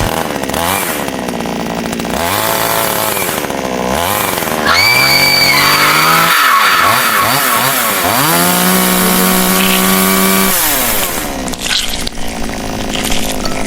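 Chainsaw engine revving up and down several times, held at high revs for a couple of seconds past the middle, then winding down.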